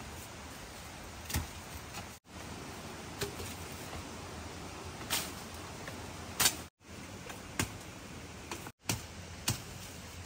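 Sharp snaps and cracks of plants and twigs being broken during bamboo-shoot harvesting, coming every second or two over a steady hiss. The loudest crack is about two-thirds of the way in, and the sound cuts out completely for a moment three times.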